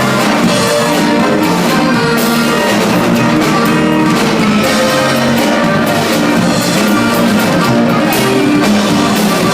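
Live regional Mexican band music playing loudly and steadily, instrumental with no singing.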